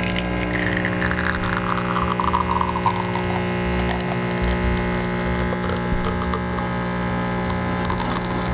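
Lelit Mara X espresso machine's vibratory pump humming steadily while a shot is pulled. A higher tone glides downward over the first few seconds.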